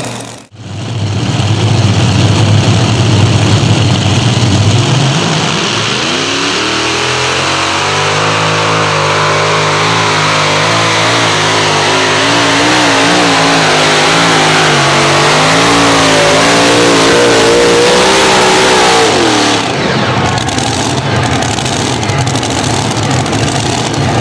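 Four NoHemi pulling tractor's alcohol-fuelled, supercharged V8 Hemi engines under full power on a pull. After a heavy low rumble, the engine note rises about six seconds in to a steady, wavering high-revving tone. It holds for some thirteen seconds, then drops sharply as the pull ends, leaving the engines running lower.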